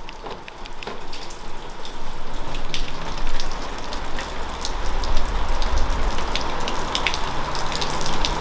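Steady rain falling on wet pavement, with many scattered sharp drip clicks; a low rumble comes up about halfway through.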